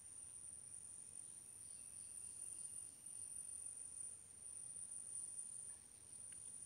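Crickets trilling in one steady, high-pitched, unbroken tone over faint background quiet.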